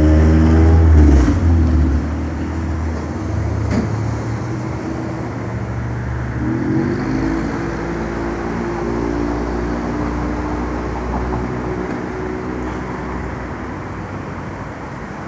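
Street traffic: a motor vehicle's engine drones low and is loudest in the first two seconds. About six seconds in, another engine rises in pitch as it pulls away, then runs on steadily and eases off near the end.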